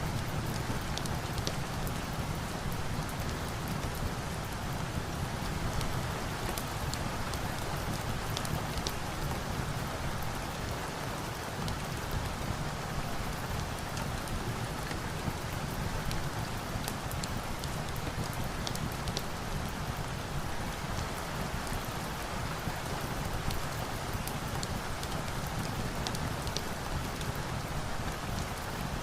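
Steady rain, an even continuous hiss, with scattered faint sharp crackles throughout.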